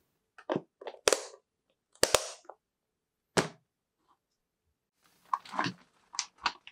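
Locking flaps of a plastic food-storage container lid snapping shut: several sharp, separate clicks, two of them in quick succession. Near the end, a dry crackling rustle as shredded dried squid is handled in a wire mesh basket.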